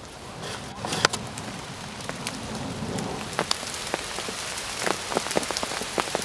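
Rain falling on a lake's surface: a steady patter with many sharp, separate drops ticking through it.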